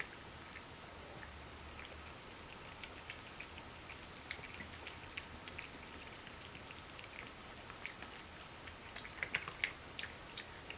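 Faint, irregular small clicks and ticks of cats eating from their dishes, coming thicker about nine seconds in.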